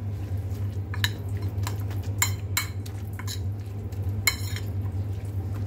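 Metal spoon stirring raw chicken mince with chopped onion and chilli in a ceramic bowl, clinking and scraping against the bowl at irregular intervals, over a steady low hum.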